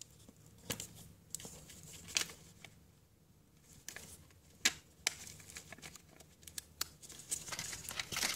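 Tear & Tape adhesive tape being pulled off its roll, torn and pressed onto a clear plastic window sheet: soft rustling and crinkling of the plastic with scattered sharp clicks and brief tearing sounds.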